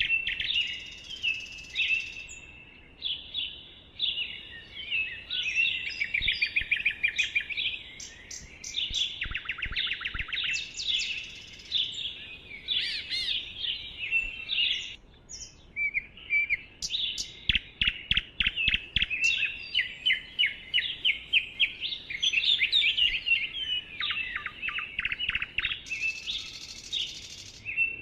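Several songbirds singing and calling at once: quick chirps, rapid trills and short whistles overlapping without a break.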